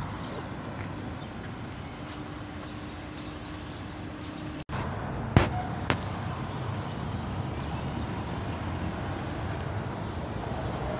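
Street ambience: a steady wash of distant traffic noise. It drops out for an instant at a cut about halfway through, and just after it two sharp clicks come about half a second apart.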